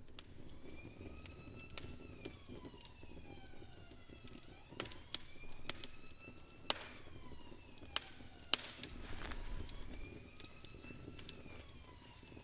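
A siren wailing faintly, its pitch sweeping down and back up every few seconds, with sharp clicks scattered over it.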